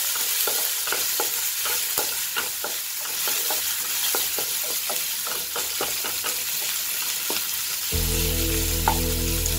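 Garlic, ginger and green chillies sizzling in hot oil in a nonstick wok, stirred with a wooden spatula that scrapes and taps the pan two or three times a second. Background music comes in near the end.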